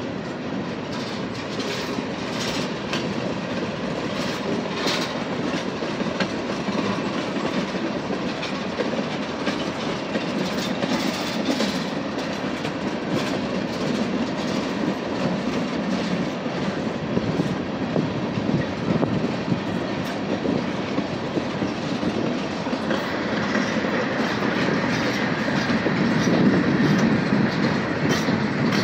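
Freight train rolling past, its steel wheels rumbling and clicking over the rail joints as tank cars, covered hoppers and a centerbeam flatcar go by. A faint steady high whine joins about three quarters of the way through, and the rumble grows louder near the end.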